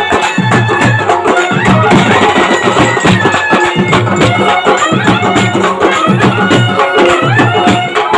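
Loud folk music for a kolatam stick dance: a held melody line over a dense percussion rhythm, with the sharp wooden clacks of the dancers' kolatam sticks striking together in time.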